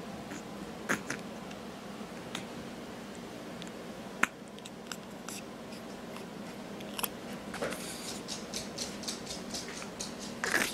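Quiet room with a faint steady hum and scattered small clicks and rustles, a sharp click about four seconds in, and a brief louder noise near the end.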